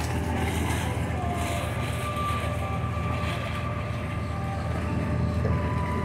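Steady low engine hum with no rise or fall, with a faint wavering thin tone around it.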